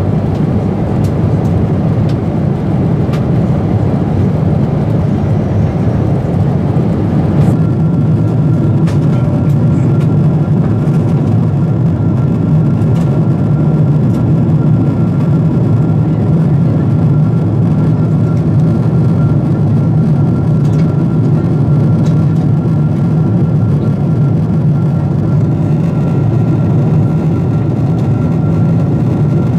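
Steady cabin noise of a Boeing 747-8 in flight, heard from a window seat: the roar of its GEnx engines and the airflow over the fuselage. About a quarter of the way in, a faint, thin, steady whine joins the roar and holds.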